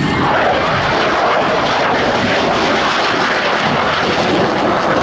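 Belgian Air Force F-16's turbofan engine, loud and steady jet noise as the fighter flies low past with its landing gear down.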